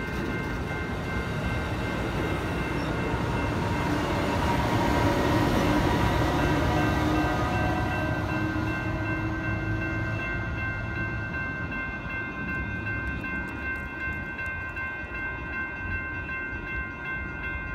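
Amtrak push-pull passenger train passing, its Siemens Charger diesel locomotive shoving at the rear loudest about five to seven seconds in, then pulling away. Grade-crossing bells ring steadily throughout.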